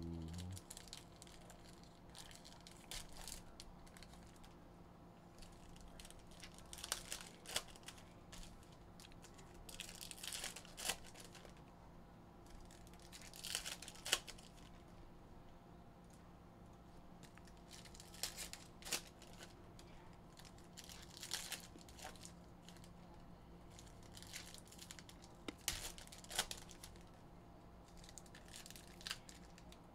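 Foil trading-card pack wrappers being torn open and crinkled by hand, in short bursts every two to four seconds.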